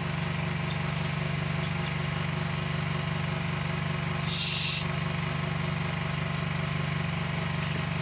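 A steady low mechanical hum, as of a motor running, throughout. A brief high-pitched sound breaks in about halfway through.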